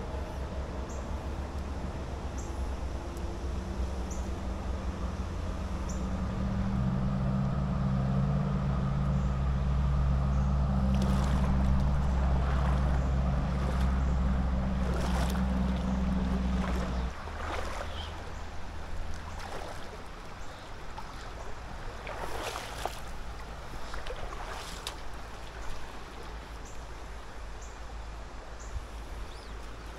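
A low, steady engine drone with a held pitch grows louder over the rush of flowing river water, then stops abruptly about seventeen seconds in. After that the river flow remains, with a few brief sharp swishes.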